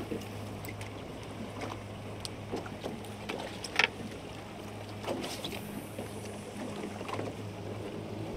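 Choppy sea water slapping and splashing against the hull of a small fishing boat, in irregular knocks with one louder slap near the middle, over a steady low hum.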